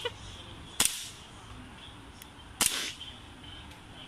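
Airsoft pistol fired twice, two sharp cracks a little under two seconds apart.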